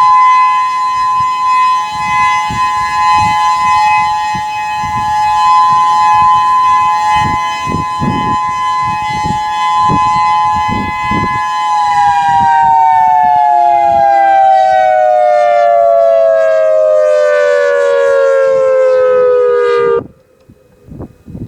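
Whelen 3016 electronic outdoor warning siren sounding its steady alert tone, a chord of high tones, with wind rumbling on the microphone. About twelve seconds in, the pitch slides steadily down as the alert winds down, then cuts off abruptly near the end.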